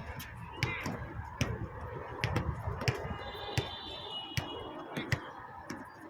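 Basketballs bouncing on a hard court, an irregular run of sharp thuds over a background murmur of voices, with a brief high squeak about three seconds in.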